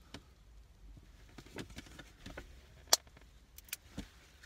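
A thin clear plastic blister sheet crackling and clicking as cured UV resin is picked and peeled off it with the fingers, with one sharp click about three seconds in.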